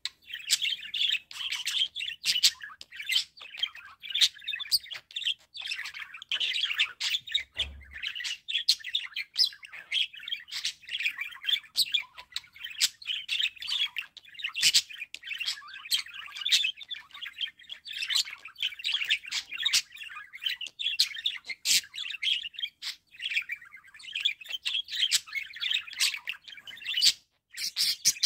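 Budgerigar warbling: a continuous chattering song of fast chirps, clicks and squeaky notes, with a short pause near the end.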